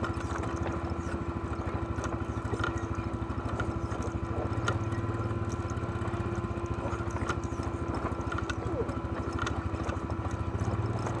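ATV engine running steadily at low speed as it picks its way down a rocky trail, with scattered clicks and knocks from stones and rattling parts.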